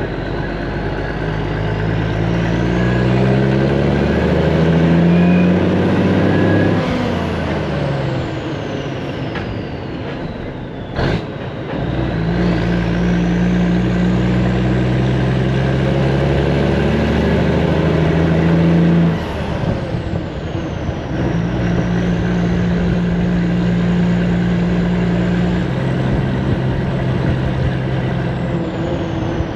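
Diesel engine of a Ford LTL9000 dump truck pulling under load, its pitch climbing over the first few seconds and dropping as it shifts, then holding steady, with a high whine rising and falling above it. A sharp click about eleven seconds in.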